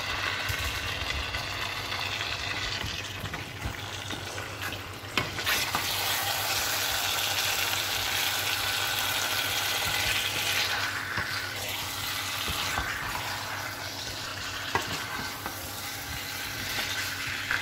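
Chicken wings and potato chunks sizzling in chili sauce in a nonstick pan while a wooden spatula stirs them, with a couple of sharp knocks of the spatula against the pan. The sizzle grows louder for a few seconds in the middle. A faint steady hum runs underneath.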